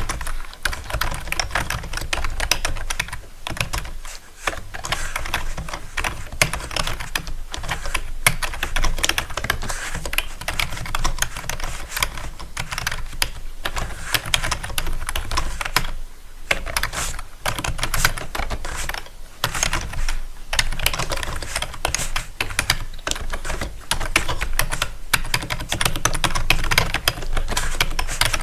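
Typing on a keyboard: a dense, continuous run of clicking keystrokes, broken by a few brief pauses.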